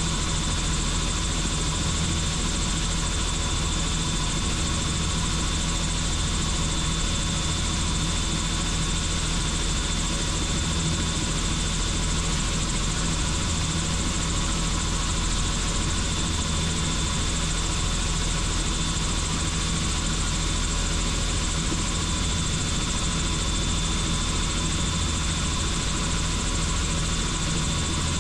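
Helicopter in flight, its engine and rotor running steadily: a constant low drone with a thin, steady high whine over it.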